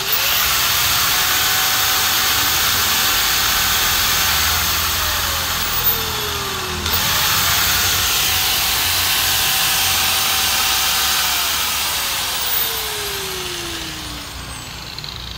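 Makita angle grinder running with no load, twice: switched on, spinning up to a steady high whine, then switched off and winding down with a falling pitch. It starts again about seven seconds in and winds down slowly to near the end.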